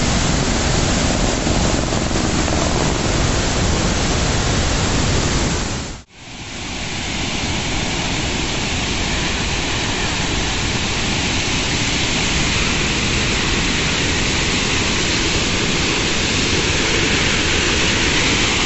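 Large waterfall's rushing water, a loud steady noise. It cuts out abruptly about six seconds in and swells back at once.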